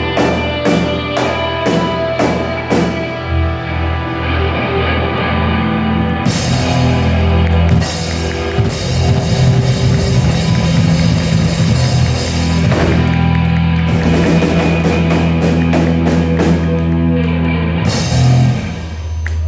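Rock band playing live, an instrumental passage on drum kit and guitars. Steady drum beat at first, then crashing cymbals from about six seconds in, with the music dropping off just before the end.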